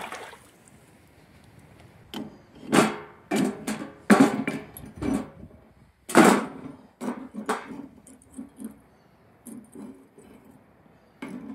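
Freshly cast aluminum dog bones clinking and knocking as they are handled: about a dozen irregular metallic strikes, the loudest a few seconds in.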